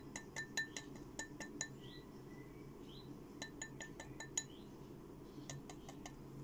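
Faint, light glassy clinking: quick clusters of small sharp clicks that ring briefly, a burst of several in the first second and a half, another around the middle and a few more near the end.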